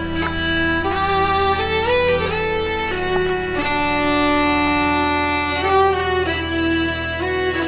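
Background music: a melody of long held, sliding notes over a steady low drone.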